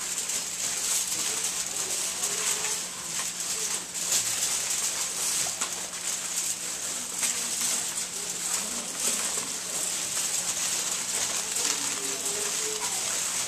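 Aluminium foil being crumpled and shaped by hand, a continuous crinkling rustle made up of many small crackles.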